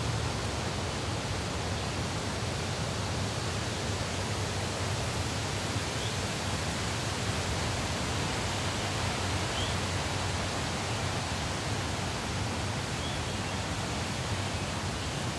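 A steady, even rushing noise of an outdoor ambience, with a low steady hum underneath and a few faint, short, high chirps every few seconds.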